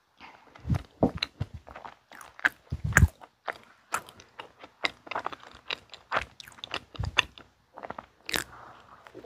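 Close-miked chewing of a soft mint chocolate cream bun topped with chocolate cookie crumbs: wet mouth clicks and soft crunching, with a fresh bite taken near the end.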